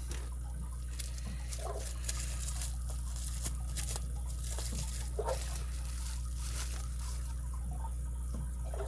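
Packaging being handled and unwrapped by hand: scattered light crinkles, rustles and clicks, busiest in the first few seconds, over a steady low hum.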